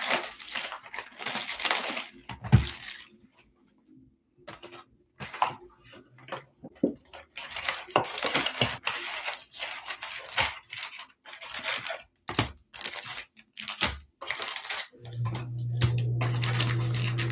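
Shrink wrap being torn off a cardboard trading-card hobby box, then foil card packs crinkling as they are lifted out: irregular crackling and rustling. A steady low hum comes in near the end.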